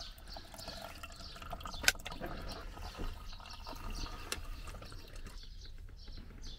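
Water running from a small sink faucet fed by the fresh-water tank and draining away through the sink, a steady light wash, with a sharp click about two seconds in.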